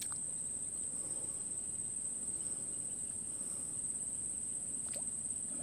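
Steady high-pitched drone of insects in the swamp grass, running unbroken.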